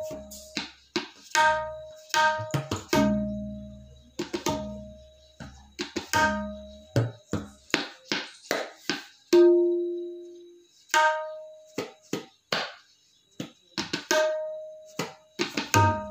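A tabla pair playing the ektal theka at an even, unhurried tempo. Sharp strokes on the right-hand dayan ring at a clear pitch, and deep bass strokes sound on the left-hand bayan.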